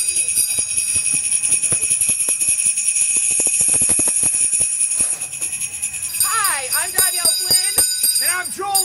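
Salvation Army hand bell rung rapidly and continuously, a steady bright ringing with quick clapper strikes. About six seconds in, people's voices join in over the bell.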